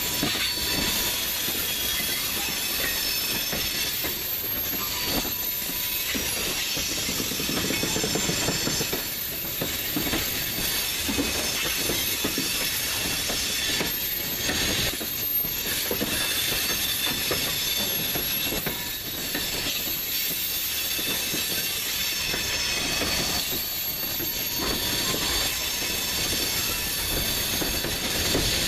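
Freight train of tank cars and covered hoppers rolling past at track side, the wheels clanking over a rail diamond crossing again and again, with a high wheel squeal above the steady rumble.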